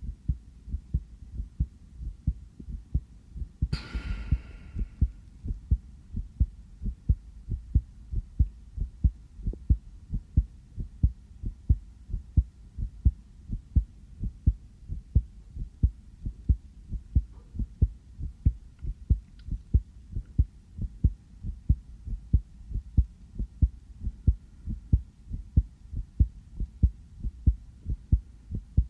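A person's real heartbeat recorded close up: steady, evenly spaced low thumps. A brief burst of noise about four seconds in.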